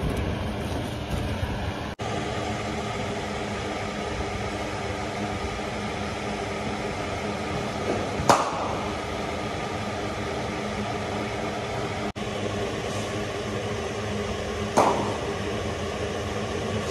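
Steady mechanical hum, broken twice by the sharp crack of a cricket ball struck by a bat, about eight and fifteen seconds in.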